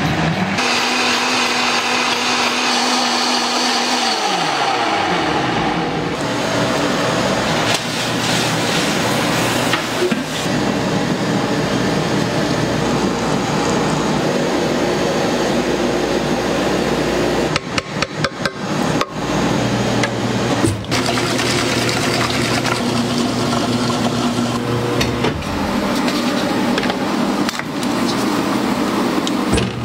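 A Vitamix blender's motor runs with a steady whine, then falls in pitch and winds down about four seconds in. After that comes the steady running of a Frigomat ice cream batch freezer, with a short run of rapid knocks partway through.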